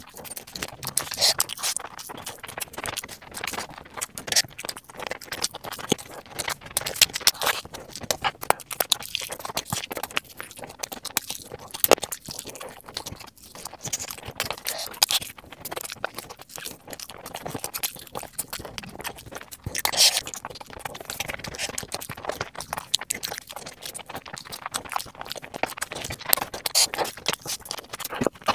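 Close-miked eating sounds: chewing with a dense, irregular run of clicky mouth sounds as spicy fried chicken leg pieces and stir-fried noodles are bitten and chewed.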